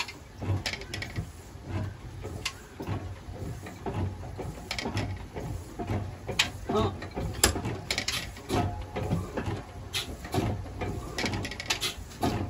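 Old 35 HP Hornsby single-cylinder diesel engine being turned over by hand at the flywheel during starting: a low thud about once a second with sharp metallic clicks and knocks from the moving parts.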